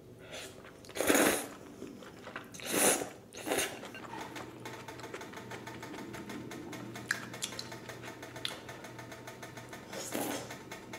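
Udon noodles being slurped in a few loud noisy bursts in the first few seconds, then a fast, steady clicking from an old electric grill pan, with another slurp near the end.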